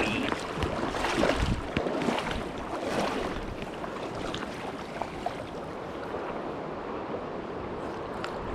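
Rushing river water, a steady noise, with some wind buffeting the microphone.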